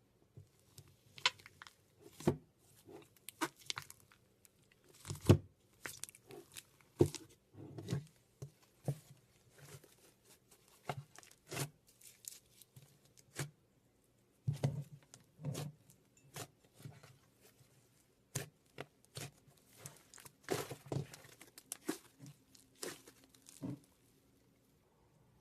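Slime being squeezed, poked and stretched by hand, giving irregular crackling pops and clicks that stop shortly before the end.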